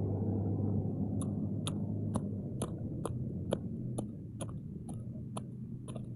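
A wooden stick jabbing and scraping into dry soil, digging out a cricket burrow: a steady run of short crunching strokes, about two a second, starting about a second in.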